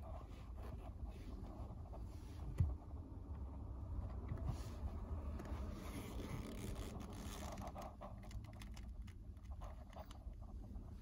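Leather loafers scuffing and pressing on a car's pedals and rubber floor mat, small scrapes and creaks with one sharp knock about two and a half seconds in, over a steady low rumble.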